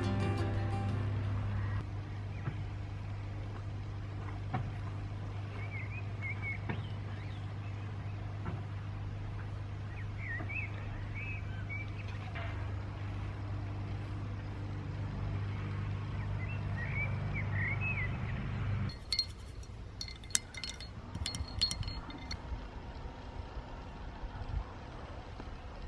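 A steady low hum, with a bird chirping briefly a few times over it. About nineteen seconds in the hum stops and a run of light clinks and taps follows.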